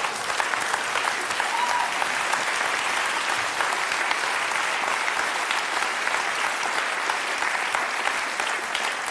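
A large studio audience applauding: steady, dense clapping that holds at one level throughout.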